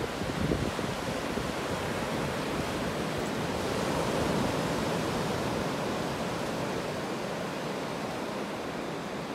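Pacific Ocean surf washing onto a flat sandy beach. It is a steady wash of breaking waves that swells about four seconds in and then slowly eases off.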